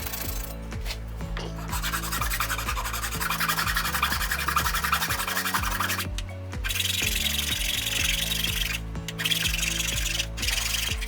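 Sanding: a steady abrasive rasp in long stretches, pausing briefly about halfway through and again near the end. Background music with steady low notes plays under it.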